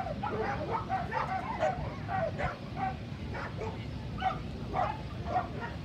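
Dogs barking and yipping repeatedly, several short barks a second, over a steady low background noise.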